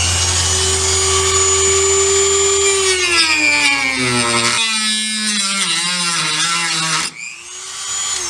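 Dremel rotary tool running at high speed with a steady high whine. From about three seconds in, its pitch drops and wavers as it bites into the truck bed's bed liner. It cuts off abruptly about seven seconds in, and a brief fading whine follows near the end.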